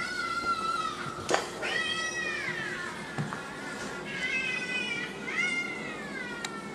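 A string of about four long, drawn-out cat meows, each one rising and then falling in pitch. A sharp click comes about a second and a half in.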